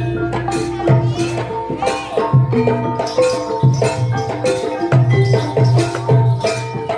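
Live Banyuwangi barong gamelan music: struck metal keyed instruments ringing out a busy pattern over regular low drum strokes, with a high sliding melody line above.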